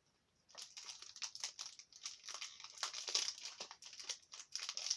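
Foil wrapper of a Pokémon booster pack crinkling as it is handled, in quick irregular crackles starting about half a second in.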